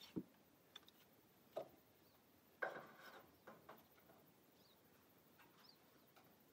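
Mostly quiet, broken by a few light knocks and clicks from a clamp being fitted to the top of a corrugated-metal shower wall panel; the loudest knock, about two and a half seconds in, rings briefly. Faint bird chirps come near the end.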